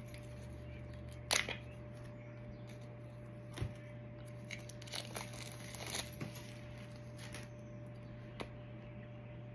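Scattered clicks and rustles of a cardboard Funko Pop box and its plastic insert being handled and opened, with one sharper click about a second in. A faint steady hum runs underneath.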